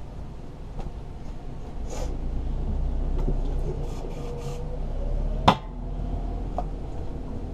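Short hisses of a spray-paint can into a cap and a sharp tap about five and a half seconds in, over a low tractor engine rumble that swells from about two seconds in, its pitch slowly rising.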